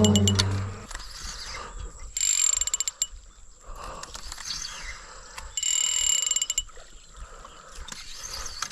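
Fishing reel being wound in two short bursts of rapid clicking, each about a second long.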